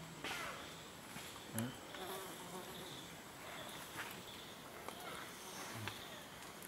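Rainforest insects buzzing and droning steadily, with a few small clicks scattered through.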